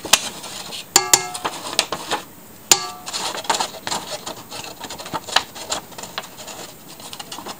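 A plastic spatula scrapes grated orange peel off a plastic plate into a stainless-steel stand-mixer bowl. There are sharp knocks with a brief ring about a second in and again near three seconds, then a run of quick scraping strokes.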